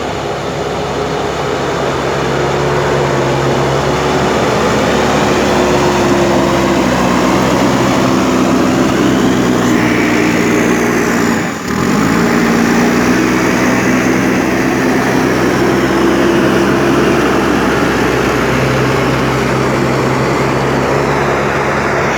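JCB 3DX Super backhoe loader's diesel engine running hard and steady, its pitch shifting up and down as the machine works, with a brief drop about halfway through.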